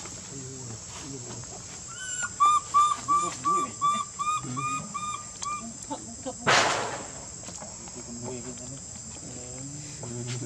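A steady high insect drone throughout. From about two seconds in, an animal gives a run of about ten short, evenly spaced, whistle-like calls, followed at about six and a half seconds by a brief noisy rush.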